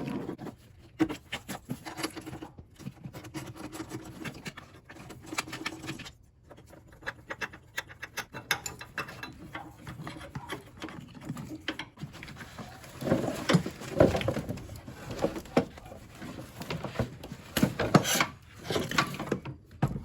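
Ratchet with a 10 mm socket clicking in quick runs of ticks, then several louder clunks and knocks of hand tools and metal parts in the second half.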